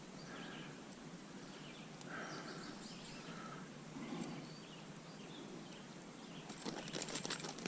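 Quiet outdoor background noise with a few faint short chirps, and from about six and a half seconds a dense crackling rustle.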